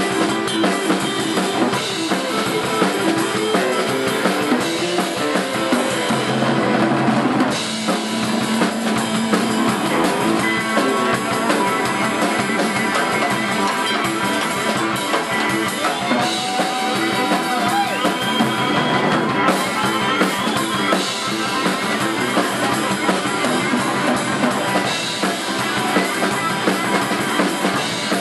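Live acoustic band playing an Irish-style tune: strummed guitars and banjo over a steady beat.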